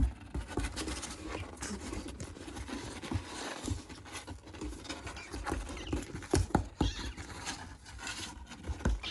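Close rustling with scattered soft knocks and clicks, the sound of a young kitten being handled or moving on bedding right by the microphone; no clear meows.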